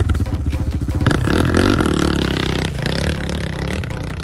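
Dirt bike engine revving hard under load on a steep climb, surging louder about a second in and easing off near the end.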